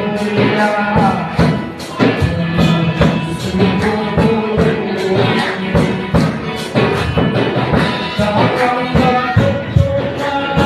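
Worship music: voices singing a Garo gospel song over a steady percussion beat.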